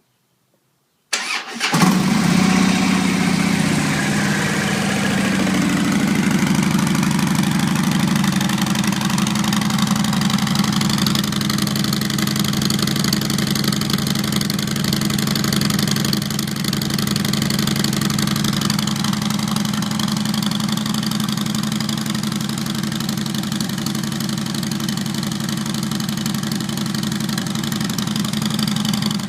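2011 Harley-Davidson Road Glide Custom's V-twin engine starting about a second in and settling into a steady idle through its stock exhaust.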